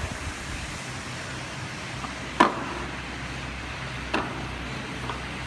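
A few isolated knocks over a steady low background hum in a gym. The loudest, a sharp knock, comes about two and a half seconds in, and a softer one follows a little under two seconds later.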